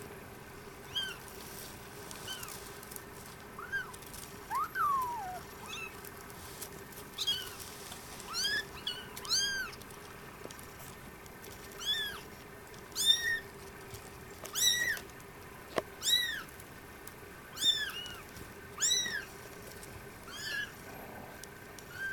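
Singapura kittens mewing: about twenty short, high-pitched mews, coming more often in the second half, with one longer mew that falls in pitch about four and a half seconds in.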